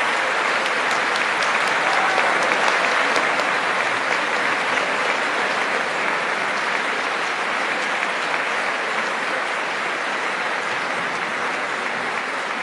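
Sustained applause from a large audience: many hands clapping in a dense, steady wash that eases slightly toward the end.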